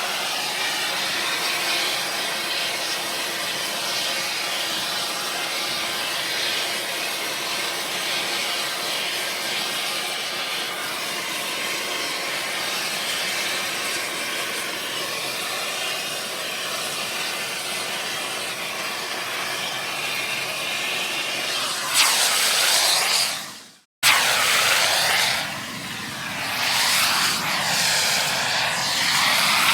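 Air torch on metal blowing a steady rushing hiss. Near the end it swells louder and cuts off abruptly, then starts again with a hiss that sweeps up and down in tone.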